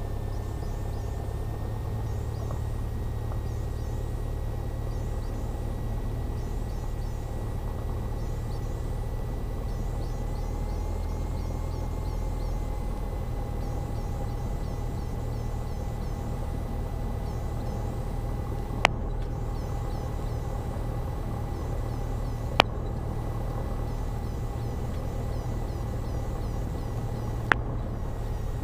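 Cessna 172's engine idling steadily, a low drone with a thin steady tone above it. Three sharp clicks in the last third.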